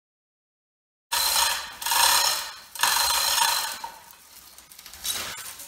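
Chain hoist being hauled in three quick pulls of about a second each, its chain rattling through the ratchet as it lifts copper windings out of a stator housing, then fainter scraping. The sound begins abruptly about a second in.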